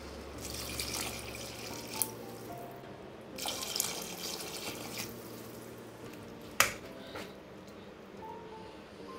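Water poured twice from a steel cup into a steel cooking pot of rice and vegetables, splashing onto the food. A single sharp knock comes about six and a half seconds in, over soft background music.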